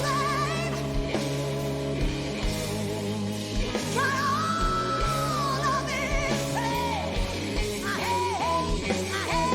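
Female blues-rock singer performing live with a band, her voice wavering with strong vibrato over steady sustained low chords, with one long held note about four seconds in.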